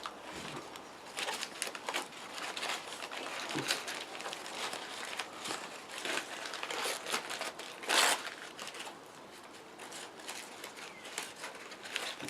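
Butcher's paper crinkling and rustling as it is unwrapped from a piece of beef, in irregular crackles with a louder rustle about eight seconds in.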